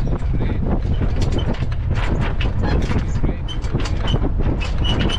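Small sailing yacht underway on choppy water: a steady low rumble with frequent clicks and knocks throughout.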